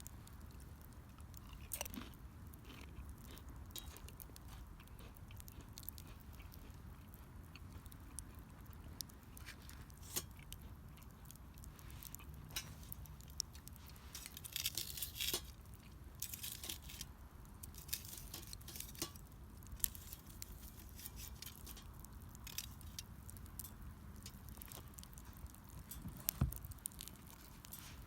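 Burning wood crackling, with scattered small snaps and pops and a denser flurry of crackles about halfway through.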